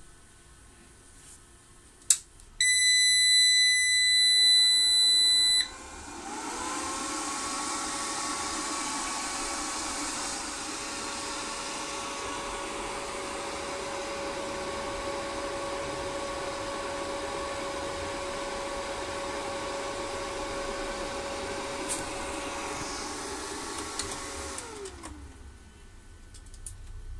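Solar inverter-charger powering up: a click, then its buzzer gives one steady beep lasting about three seconds. Its cooling fans then spin up with a rising whine and run with a steady hum and airy whirr, winding down with a falling pitch near the end.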